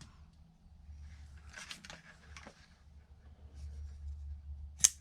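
Faint rustling and scraping as a folding knife and its packaging are handled, then one sharp click near the end.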